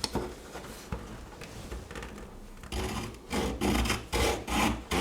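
Small folding wood saw of a Victorinox Farmer X Alox Swiss Army knife cutting a tree branch: after a few light clicks, rhythmic back-and-forth rasping strokes start about three seconds in, roughly two a second.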